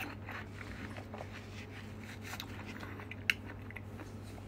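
Quiet room tone with a steady low hum and a few faint small clicks, one sharper click about three seconds in.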